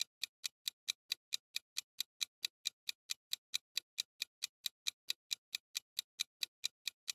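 Countdown timer sound effect: a clock ticking quickly and evenly, about four to five ticks a second.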